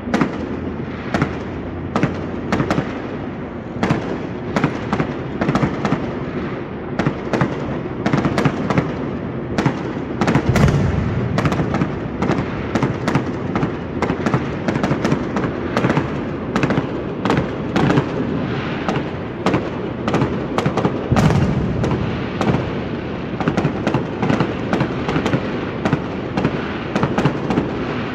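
Many fireworks going off at once across a city: a near-continuous run of sharp bangs and crackles over a steady low rumble, with heavier booms about ten seconds in and again about twenty-one seconds in.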